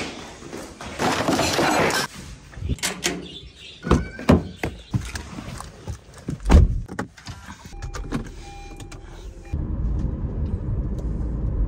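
Car door handling: a run of clicks and knocks with a heavy thump, like the door being opened and shut, and a short electronic beep. Then the steady low rumble of the car driving, heard from inside the cabin, takes over for the last couple of seconds.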